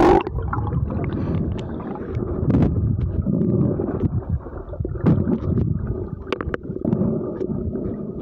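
Underwater sound through a submerged rugged smartphone's microphone: an uneven, muffled low rumble and gurgle of water moving over the phone, with scattered small clicks. A brief loud rush right at the start.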